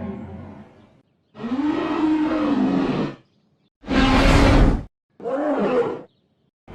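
Godzilla roar sound effects played one after another with silent gaps between them. An earlier roar fades out in the first second. A pitched roar that rises and falls lasts about a second and a half. A short, harsh roar with a deep rumble follows, then a shorter pitched growl.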